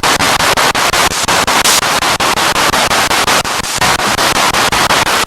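Spirit box radio scanning through stations: loud static chopped into short bursts by brief regular gaps, about six a second, as the tuner sweeps from frequency to frequency.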